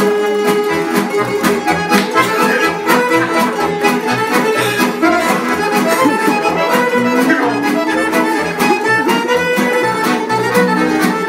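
Tamburica orchestra playing a lively instrumental passage between sung verses, with sustained melody lines over a steady beat.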